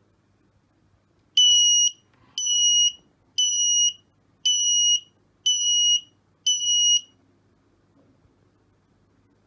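Gas-leak alarm buzzer beeping six times, about one beep a second, each a steady high tone lasting about half a second: the MQ5 gas sensor has read the gas level above the set threshold of 200.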